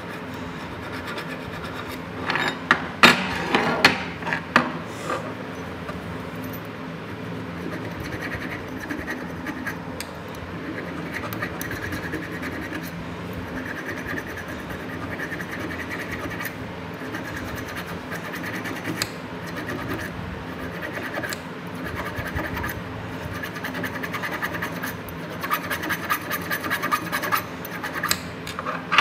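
Scraping of rust from the knurled adjusting nut of an old pipe wrench with a small pointed metal hand tool: continuous scratching strokes, metal on metal, with a run of louder strokes a few seconds in and again near the end.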